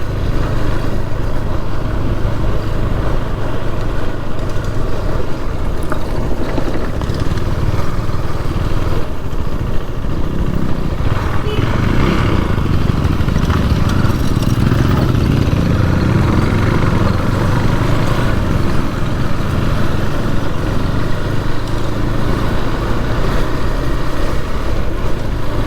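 Motorcycle engine running while riding, under steady wind and road noise on the rider's microphone, getting fuller for several seconds in the middle.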